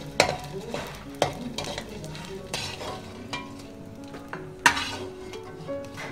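A metal slotted skimmer stirring and scraping small pieces frying in ghee in an aluminium pan: a steady sizzle with sharp scrapes and clinks of metal on the pan, loudest about a second in and near the end. Soft piano music plays underneath.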